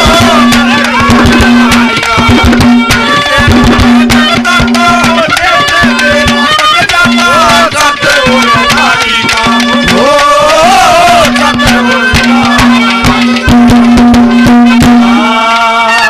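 Live Haryanvi ragni accompaniment playing an instrumental interlude: a fast hand-drum rhythm under a melody line, over a steady held note that breaks off and resumes.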